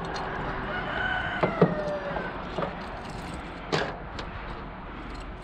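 Metal clinks and rattles from a dog-proof raccoon trap and its chain being handled, with a few sharp clicks. A rooster crows faintly in the background, starting about a second in.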